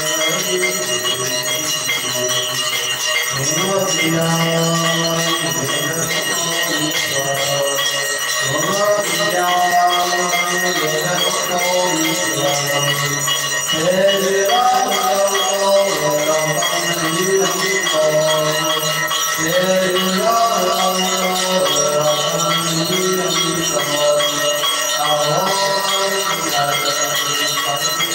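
Temple bells and jingling bells ringing continuously during an aarti, over devotional aarti music whose melody moves in phrases of a few seconds each.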